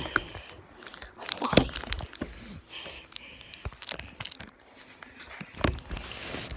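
Wrapped candy crinkling and rustling as a hand rummages through a stash of Halloween candy, with irregular clicks and a couple of louder knocks, about a second and a half in and near the end.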